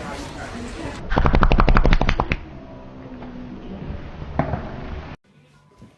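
A long rattling fart: a fast string of about a dozen sharp pops, about ten a second, lasting just over a second, like a machine gun.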